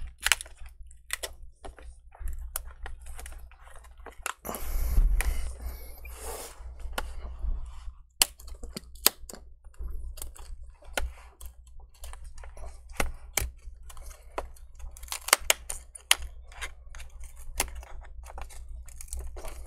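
Metal pry tool working under a laptop's screen bezel as it is prised up off its double-sided adhesive tape: an irregular run of small clicks and ticks, with a longer rustling, scraping stretch about five seconds in.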